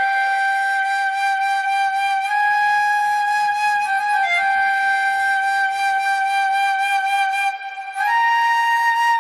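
Music: a flute melody of long held notes with a few small pitch steps; it breaks off briefly about seven and a half seconds in and comes back on a higher note.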